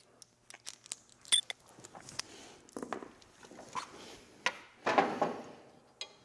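Small metal hardware (bolts, nuts and washers) clicking and clinking as it is handled and fitted by hand: a string of light ticks, with louder scuffs about three seconds in and about five seconds in.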